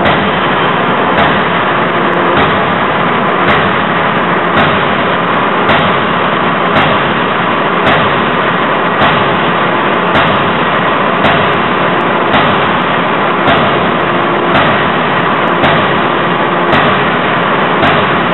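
C92K 200 kJ CNC hydraulic die forging hammer striking hot anchor-chain stock in its die, one blow about every second at a steady rhythm, over continuous loud machine noise.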